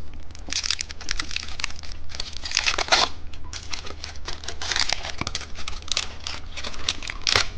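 Plastic candy wrapper being crinkled and torn open by hand: a dense run of irregular crackles and rustles with a few louder bursts of tearing.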